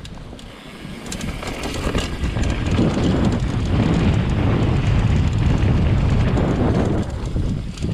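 Mountain bike tyres rolling over a hard-packed dirt trail, with wind buffeting the action camera's microphone; the rumble swells about two seconds in and stays loud, dipping briefly near the end.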